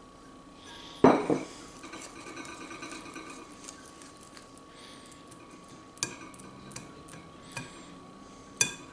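Utensils and a mixing bowl clattering. There are two loud knocks about a second in, then a stretch of scraping and stirring, and sharp clinks later on, as the flour and salt are added to the creamed butter and sugar.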